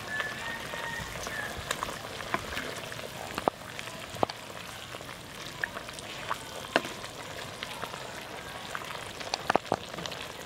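Tamarind curry bubbling steadily in a clay pot, with scattered sharp clicks and taps as a perforated ladle stirs through the fried pappadams and knocks against the pot.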